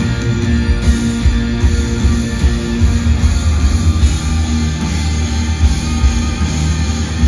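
Live rock band playing loudly, electric guitar to the fore over a heavy, steady bass.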